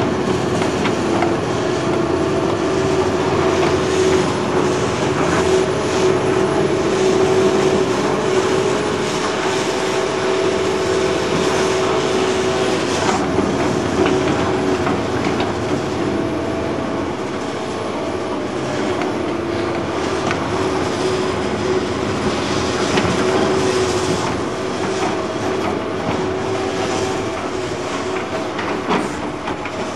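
Hydraulic excavators working: a diesel engine running under a steady hydraulic whine, with irregular clunks and rattles of spoil and rubbish being tipped into open steel railway wagons.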